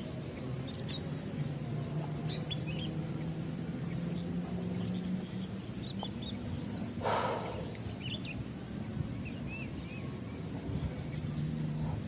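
Small birds chirping in short, scattered calls over a steady low hum, with a brief rush of noise about seven seconds in.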